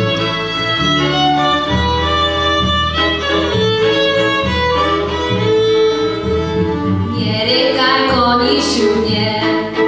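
Polish folk band playing on two violins, double bass and accordion, the fiddles carrying the tune over changing bass notes. A voice begins singing near the end.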